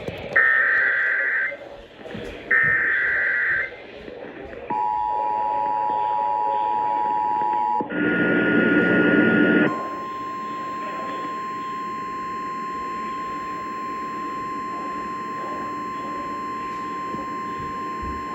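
Emergency Alert System broadcast tones heralding a new warning. First come two of the warbling SAME digital header bursts, about a second each. Then the two-tone attention signal holds steady for about three seconds, a short burst of static-like noise follows, and the single steady 1050 Hz NOAA Weather Radio alert tone sounds for about nine seconds.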